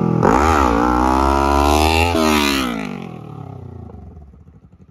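Motorcycle engine revving hard as the bike accelerates, its note climbing in pitch after a brief dip near the start. The note breaks about two seconds in, then falls and fades away over the last two seconds.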